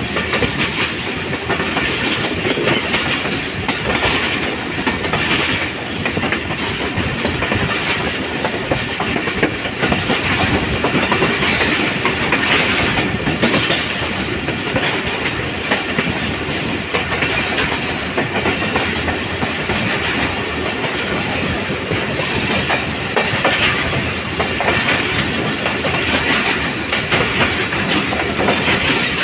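Passenger train coaches running on the track, the wheels rumbling and clattering over rail joints in a steady rush, heard from an open coach doorway.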